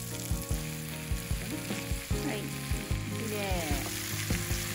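Butter sizzling in a cast-iron skillet with apple slices frying in it, under background music with a steady beat.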